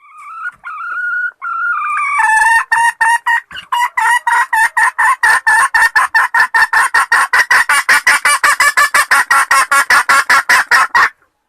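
Wild chicken (red junglefowl) calling: a few drawn-out notes, then a long run of rapid, repeated clucking notes that speed up and cut off abruptly near the end.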